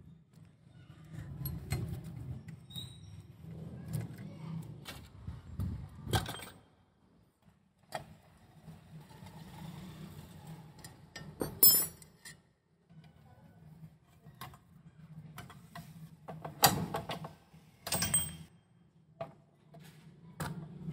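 Metal clicks, clinks and knocks of hand tools and engine parts being handled while a Honda CD70 engine is stripped from its frame, with several sharp knocks, the loudest about 17 seconds in. A low steady hum runs underneath.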